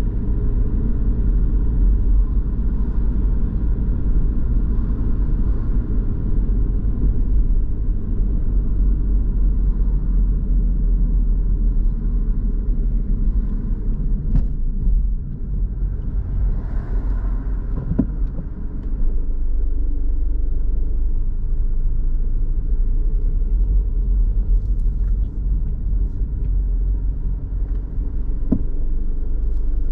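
Car driving along a town street: a steady low rumble of engine and road noise, with a few faint clicks.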